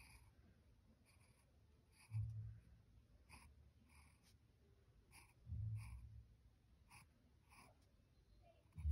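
Faint scratching of a pen on sketchbook paper as short strokes are drawn one after another, about two quick scratches a second. Two soft low bumps come in, about two seconds in and again about halfway through.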